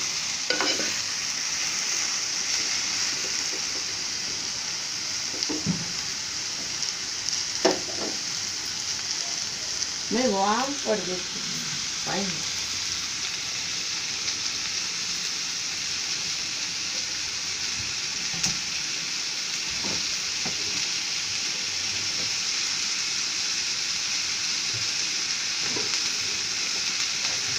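Diced vegetables sizzling as they fry in a large aluminium pot, a steady hiss with occasional short knocks as they are stirred.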